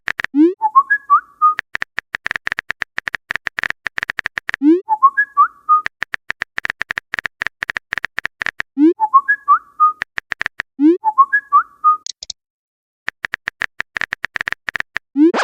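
A short looping jingle: a rising whistle-like swoop and a few quick whistled notes, followed by a run of rapid clicks with a steady high tone, repeating about every four seconds.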